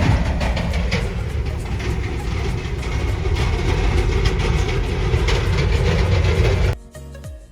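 A car driving, heard from inside: a steady low road-and-engine rumble with scattered knocks and rattles. It cuts off abruptly near the end, where background music takes over.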